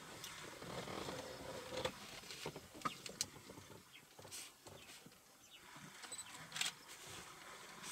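African elephant and calf wading in a shallow river, water splashing and sloshing around their legs, with a busier patch of splashing over the first two seconds and several short sharp splashes scattered through.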